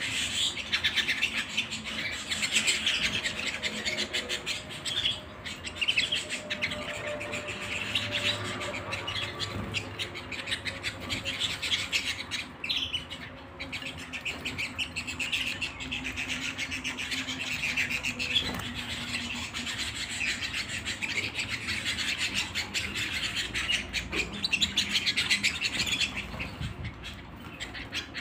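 Domestic canary singing a long, nearly continuous song of rapid trills, broken only by brief pauses.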